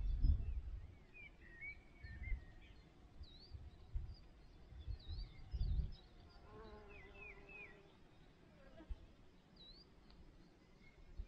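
Small birds chirping in short calls, with a bee buzzing past for about a second and a half around the middle. Wind buffets the microphone in low gusts, strongest at the start.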